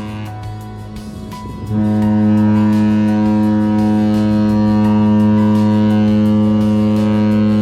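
Mein Schiff 7's ship horn sounding a long, steady, deep blast. It dips briefly at the start and comes back at full strength after about two seconds.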